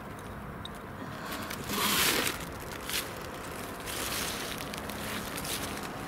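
Rustling and crackling in dry forest-floor leaves and twigs, loudest in a brief rustle about two seconds in, with a sharp click about a second later, over a steady hum of distant road traffic.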